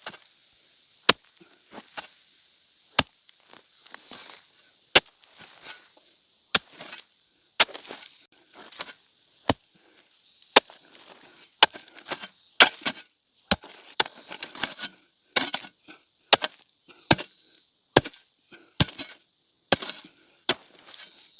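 Repeated chopping blows from a hand tool, about one sharp strike a second, with lighter rustling and scraping between strikes. A steady high hiss runs underneath.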